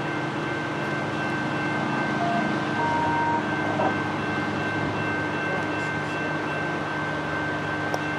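Approaching freight train's diesel locomotives, still out of view: a steady engine hum with a constant high whine over rumbling noise.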